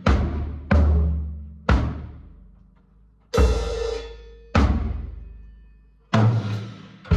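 Drum kit being sound-checked: single drum hits, mostly on the toms, spaced about a second apart, each left to ring out and die away. About three seconds in comes one hit with a longer, brighter ring, like a cymbal crash.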